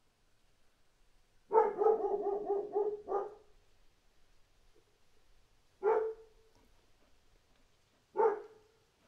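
Dog barking: a quick run of barks about a second and a half in, then two single barks, one near the middle and one near the end.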